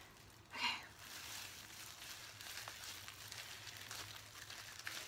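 Faint wet squishing and crinkling of plastic-gloved hands working bleach paste through hair, with one brief louder sound about half a second in.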